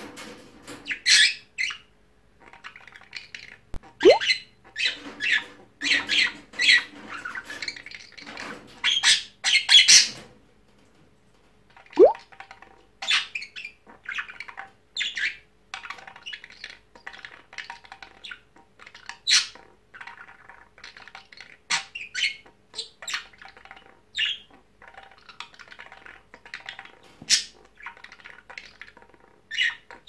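Budgerigar chattering in a run of short chirps, squawks and warbles, mimicking the sound of a ball being thrown and the calls of an Indian ringneck parakeet. Twice a fast rising swoop cuts through the chatter.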